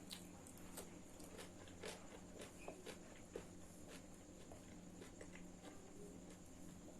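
Faint eating sounds: a person chewing and biting food, with small scattered clicks and taps throughout, over a steady background hum.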